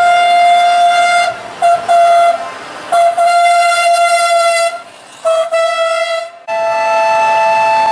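A Scania show truck's air horn sounds one loud, bright note in a string of long and short blasts. At about six and a half seconds it gives way to a steady horn chord of two notes held together.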